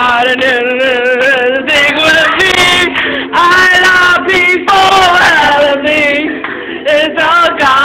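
A group of voices singing together in harmony, holding long notes with a wavering vibrato.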